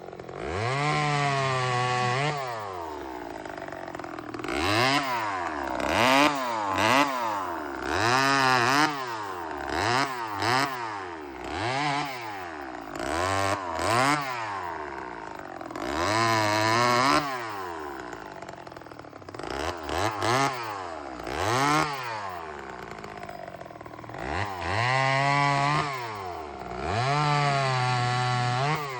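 Remington Weekender 34cc two-stroke chainsaw engine being revved over and over, rising to high speed and dropping back every second or two, with a few longer holds at high revs.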